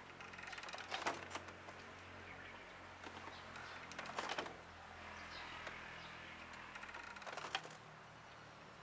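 Clicks and light metallic rattles from a tilting trike-kit frame on a Honda Scoopy i as the scooter is leaned over by hand. They come in three short clusters about three seconds apart.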